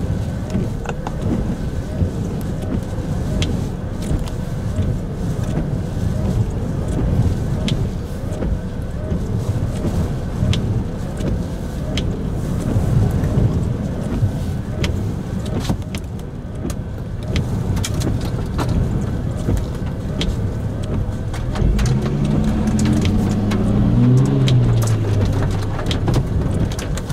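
Strong wind from a nearby tornado buffeting the microphone in a steady low rumble, with scattered sharp ticks. A low drone that rises and falls joins near the end.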